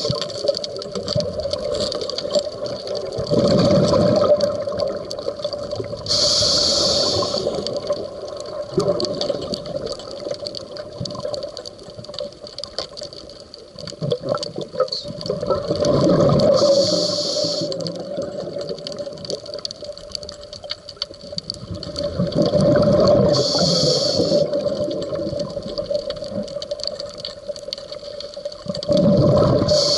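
Scuba diver breathing through a regulator underwater: a short hiss on each inhale, then a gurgling rush of exhaled bubbles, in a slow regular cycle every six to ten seconds.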